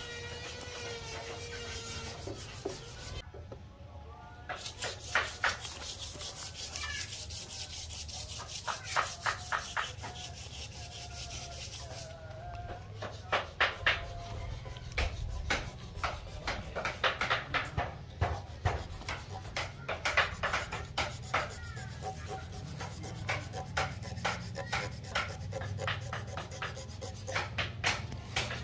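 Rubbing and scraping strokes on rough teak wood, irregular and coming in short runs of a few strokes at a time. A bird calls briefly at the start.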